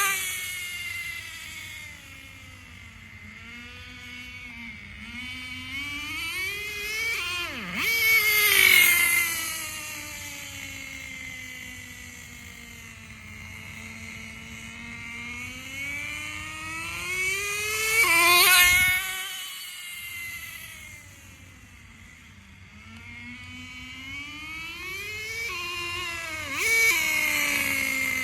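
Traxxas 4-Tec RC car's .15 nitro engine running at speed, its high-pitched note rising and falling with throttle. It is loudest as the car passes close, about four times. About 19 seconds in the pitch drops sharply and the engine briefly goes quiet before it picks up again.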